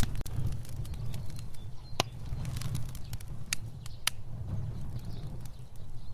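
Fire burning with a low, steady rumble of flame and scattered sharp crackles and pops; the loudest pop comes about two seconds in, with more a second or two later.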